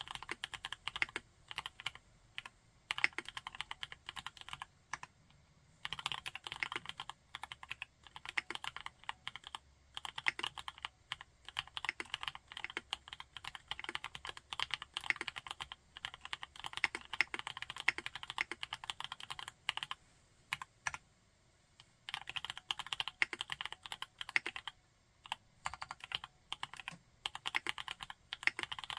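Typing on a TKD Cycle 7 mechanical keyboard with MMD Princess tactile switches: fast runs of keystrokes broken by a few short pauses.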